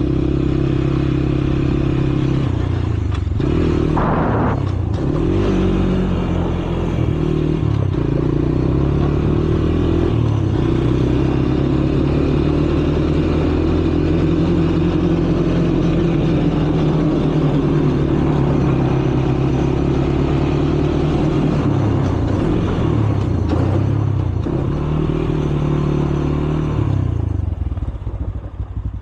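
Four-wheeler (ATV) engine running while being ridden, its pitch rising and falling again and again with the throttle, with a brief rattle about four seconds in. Near the end the engine drops back and goes quieter.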